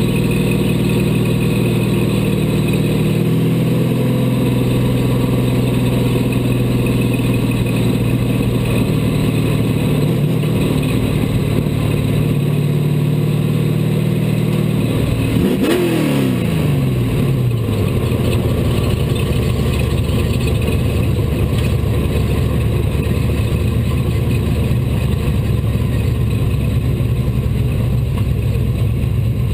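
A street stock race car's engine heard from inside the car, running slowly at part throttle. About halfway through it gives a quick rev that falls away, then settles into a steady low idle as the car stops for the halfway break.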